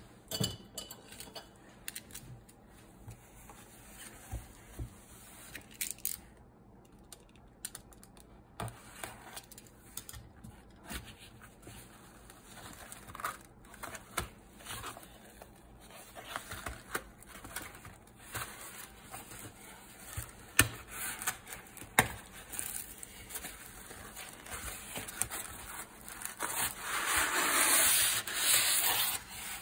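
Cardboard shipping box being handled and opened by hand: scattered taps, scrapes and rustles of cardboard. Near the end comes a few seconds of louder scraping as the white foam packing sheet is slid out against the cardboard.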